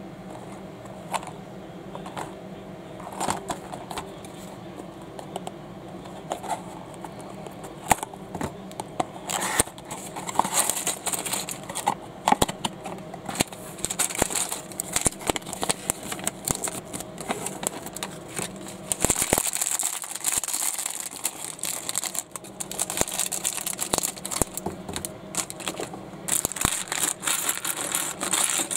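Clear plastic bag of small plastic toy bricks being handled and opened: crinkling of the thin bag with scattered clicks and rattles of the bricks. The crinkling sets in about a third of the way through and grows busier.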